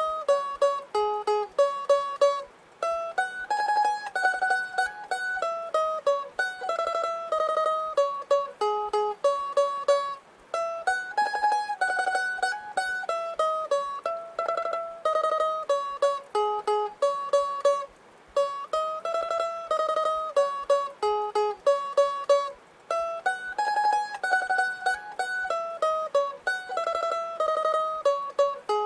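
Instrumental music: a bright plucked string melody in short, stepping notes, some held as a fast tremolo, the tune repeating in phrases of about eight seconds.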